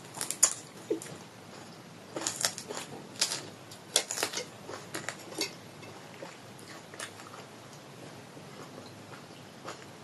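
Close-up chewing of a big mouthful of fried pork, spinach and spicy noodles: wet, crunchy clicks come thick in the first five seconds or so, then thin out to a few faint ones.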